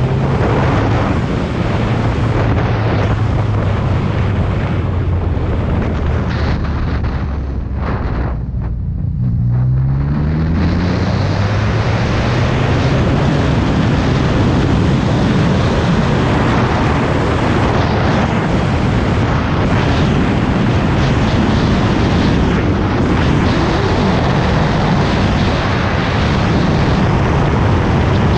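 2014 Yamaha FZ-09's three-cylinder engine running under way, with wind rushing over the microphone. About nine seconds in, the wind briefly drops and the engine note is heard rising as the bike accelerates, then the wind rush becomes steady and heavy at speed.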